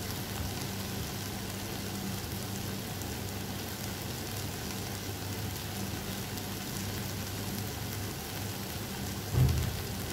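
Sliced eggplant, onion and tomato sizzling steadily in a hot pan, over a low steady hum. A brief low thump comes near the end.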